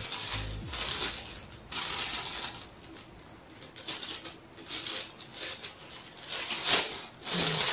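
Clear plastic packaging bag crinkling and rustling in irregular bursts as a bagged microphone pop filter is handled and turned over.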